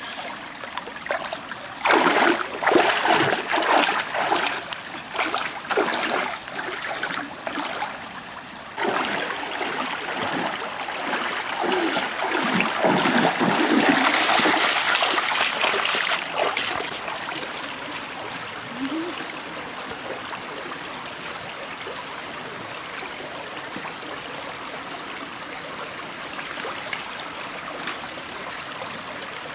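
Water splashing in irregular bursts for several seconds, then the steady rush and trickle of a flowing stream.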